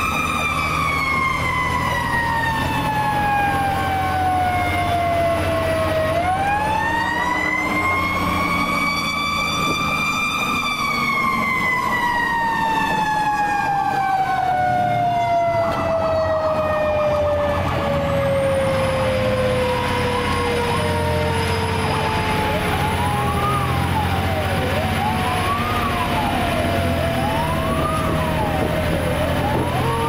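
Federal Q mechanical siren on a fire rescue truck, heard from inside the cab: it winds down, is wound up again about six seconds in, then coasts down slowly over the rest. From about twenty seconds an electronic siren sweeps quickly up and down over it, with the truck's engine running underneath.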